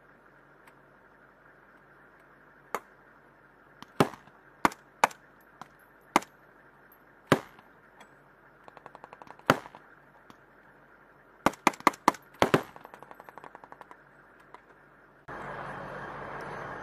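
Rifle shots in a night combat exercise, fired singly at irregular intervals, then a quick string of about six shots around twelve seconds in. Between them, fainter rapid crackling of more distant automatic fire. Near the end a steady vehicle engine noise comes in.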